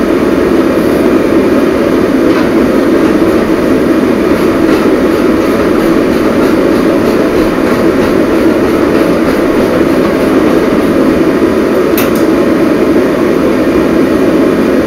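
Steady road and engine noise inside a moving car's cabin, with a single sharp click about twelve seconds in.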